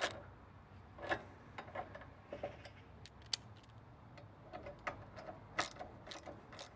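Hand ratchet clicking in short, irregular runs of light clicks as its hex bit snugs up the top mounting bolts of a motorcycle pannier crash bar.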